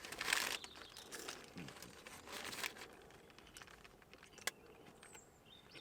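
Crinkling and rustling of takeaway food packaging as a battered sausage roll is handled, in short bursts, with a single sharp click about four and a half seconds in.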